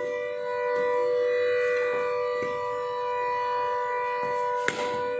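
A steady musical drone of two held notes runs throughout without rising or falling. About four and a half seconds in comes a single sharp crack, the cricket bat striking the ball.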